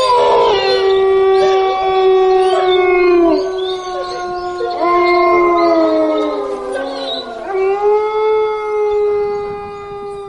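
Several dogs howling together in long, overlapping howls, each tailing off with a falling pitch; fresh howls take over about five and eight seconds in.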